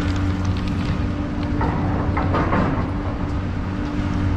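Garaventa-CTEC Stealth II chairlift drive terminal running: a steady low mechanical hum with scattered clicks, and a louder rattle about two seconds in as a chair passes around the terminal.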